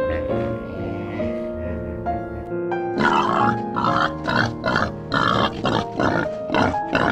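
Background music, joined about three seconds in by a wild boar grunting in a quick run, two or three grunts a second, over the music.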